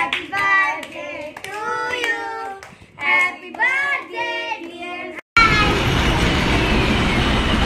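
Women and children singing together in chorus. About five seconds in, this cuts off abruptly to the steady din of a busy indoor space.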